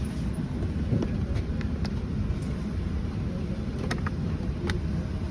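Steady low rumble of an airliner cabin aboard a Boeing 737-900, with a few faint clicks about a second in and near four and five seconds.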